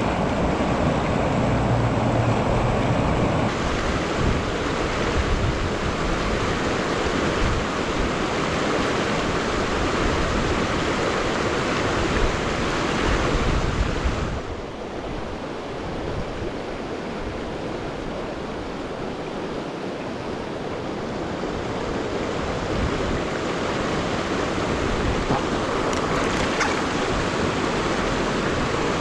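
River water rushing steadily. It drops a little about halfway through and slowly builds back up.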